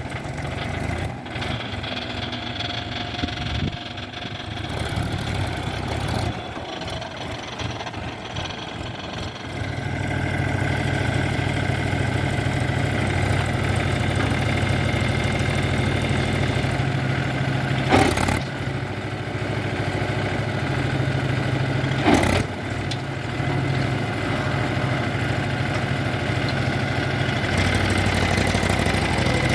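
Diesel engine of heavy machinery running steadily, with its tone settling and growing louder about a third of the way in. Two sharp knocks come in the second half.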